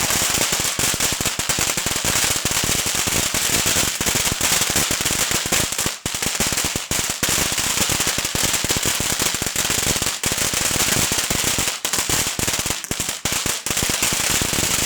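Large bonfire of wooden pallets burning hard, with loud, dense crackling and popping over a steady hiss.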